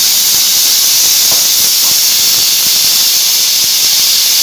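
Aluminium stovetop pressure cooker letting off a loud, steady hiss of steam from its weight valve: one of its whistles, the sign that the cooker is at full pressure.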